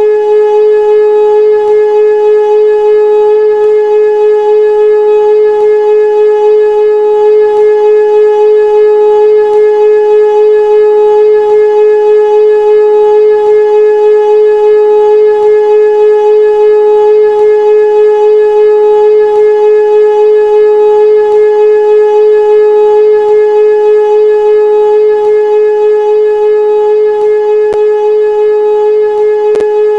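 Old Hörmann F71 civil-defence siren sounding one loud, steady tone, held at a constant pitch with no rise or fall.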